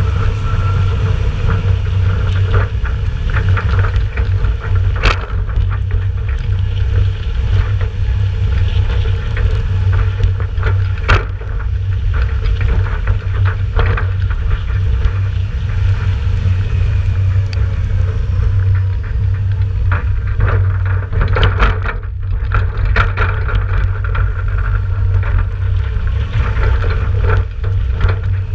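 Ford 7000 tractor's diesel engine running steadily while it tows an empty trailer at road speed, with a heavy rumble from the trailer and wind on the trailer-mounted camera. Occasional sharp knocks and rattles come from the empty trailer body going over bumps.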